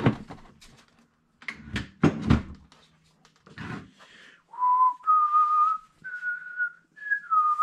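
A few knocks and rustles of handling in the first half, then a person whistling a short tune of five held notes that step upward and then drop back down.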